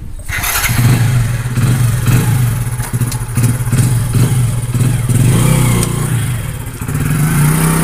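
Hero commuter motorcycle's small single-cylinder engine idling steadily, then revving up briefly near the end.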